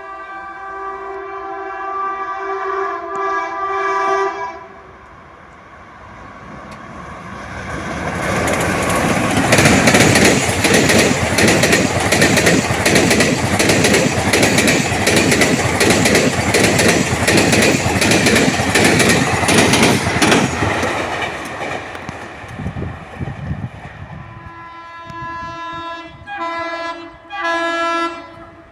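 Indian Railways express train passing at about 110 km/h. The locomotive horn sounds for several seconds, then the coaches go by with a loud, rapid clatter of wheels over the rail joints, which the uploader calls dangerous track sounds, before it fades away. The horn sounds twice more near the end.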